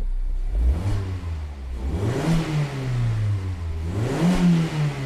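Mazda Roadster 990S's 1.5-litre inline-four idling, then revved twice with the car standing still. Each time the pitch climbs and falls back to idle, the second blip a little higher than the first.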